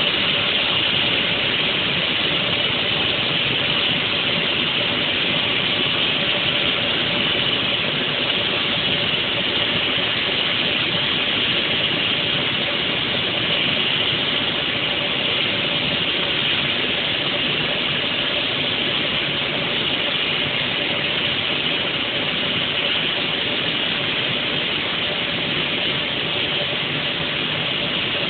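Stone block cutting machine's water-cooled saw blade grinding steadily through a stone block, a constant hiss and grind with a faint steady motor hum underneath.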